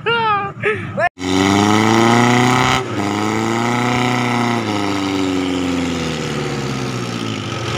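Suzuki Katana (Jimny) off-roader's engine revving hard while its rear wheels spin in thick mud, flinging it up. The revs climb to a peak and then fall back to a steadier, lower pitch.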